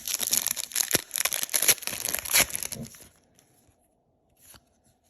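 A trading card pack wrapper being torn open and crinkled for about three seconds, then a faint tap or two.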